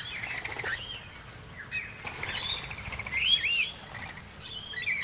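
A mixed flock of rainbow lorikeets, noisy miners and blue-faced honeyeaters chirping and squawking in scattered short calls, with a louder flurry of calls about three seconds in, amid some wing flapping.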